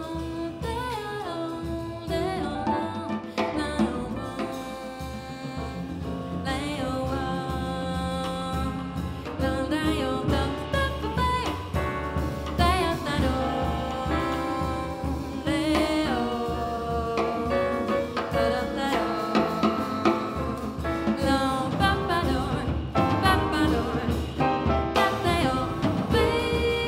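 Live small-group jazz: a woman singing with piano, double bass and drum kit backing, the band growing louder in the second half.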